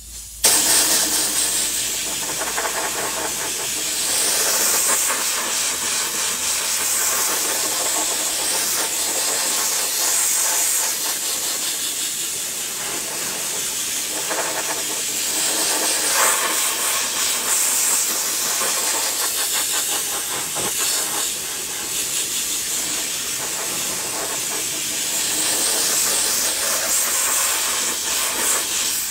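Compressed-air gravity-feed spray gun spraying glue in a long, steady hiss that starts about half a second in.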